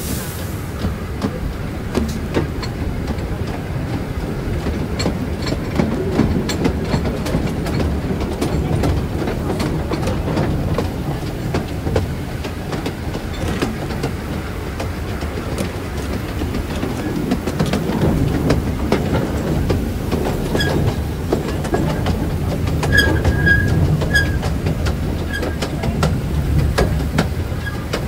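Taipingshan forest railway's small narrow-gauge tourist train running, heard on board: a steady low rumble with frequent clicks of the wheels over rail joints. Brief high wheel squeals come a few times about three-quarters of the way through.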